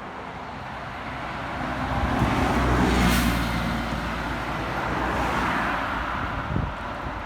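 A vehicle passing close by: a steady rumble that swells to its loudest about three seconds in, then eases and swells a little again.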